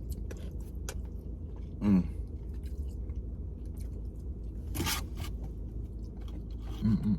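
Close-up chewing of a mouthful of jerk chicken and cabbage, with many small wet mouth clicks and smacks. A short hum comes about two seconds in and a loud breathy exhale near five seconds.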